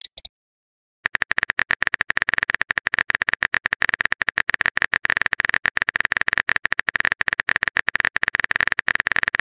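Phone keyboard typing sound effect: a rapid, steady run of clicks, about ten a second, starting about a second in.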